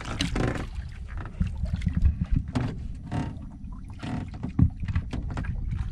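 Low steady rumble of wind and water around a small wooden outrigger fishing boat at sea, with scattered knocks and clatter of gear being handled on board; the sharpest knock comes about four and a half seconds in.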